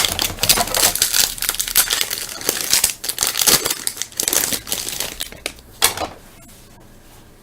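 Foil trading-card pack wrapper being torn open and crinkled by hand, a run of irregular crackles that stops about six seconds in.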